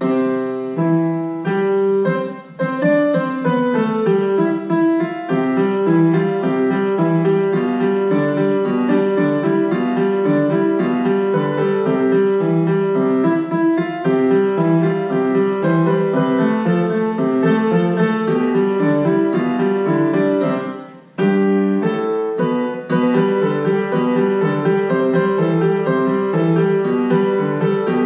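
Solo grand piano playing, beginning with a sharp first chord after quiet; the playing breaks off briefly about 21 seconds in, then carries on.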